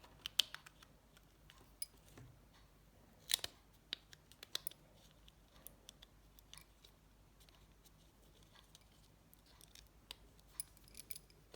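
Faint scattered clicks and small scrapes of a Nokia 7373 mobile phone's plastic and metal parts being handled and prised apart by hand, with a louder click about three and a half seconds in.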